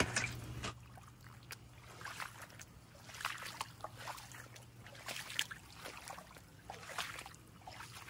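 Rubber boots wading through shallow floodwater on grass: irregular soft sloshing splashes with each step.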